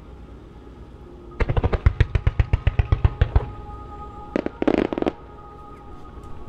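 A starmine of small fireworks firing in quick succession: about twenty sharp reports in two seconds, then two more reports and a short burst of crackling about a second later. Music plays underneath.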